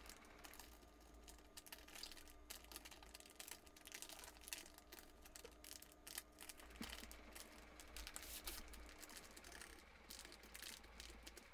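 Faint, irregular crinkling and small clicks of a thick black plastic bag being handled and slit with a sharp knife, cutting X-shaped holes in it.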